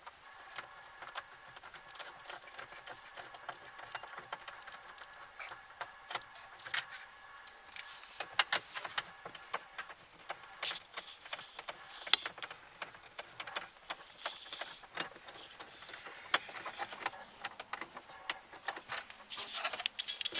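Irregular light clicks and small metal rattles of a hand tool working out the 9/32 in. bolts that hold the radio unit in the dash, with a louder clatter near the end.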